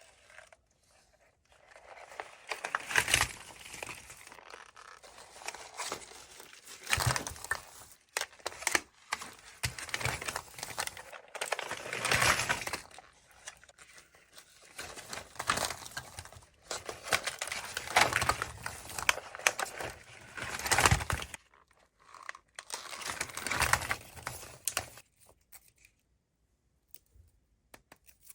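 Foil wrapper of a Kinder Surprise chocolate egg crinkling and tearing as it is unwrapped by hand, in irregular bouts with sharp crackles; it stops about three seconds before the end.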